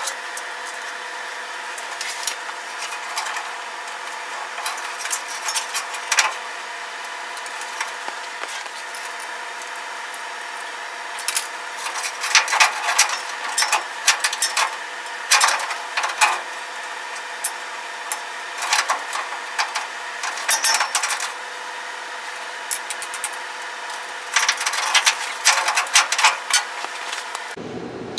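Scattered metallic clinks, clanks and rattles of a steel parking brake cable and its fittings being handled and worked into place under a truck frame, coming in clusters, over a steady hum.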